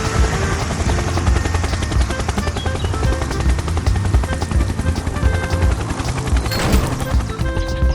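Background music with a plucky melody over a dense, fast rattling mechanical noise, with a whoosh about six and a half seconds in.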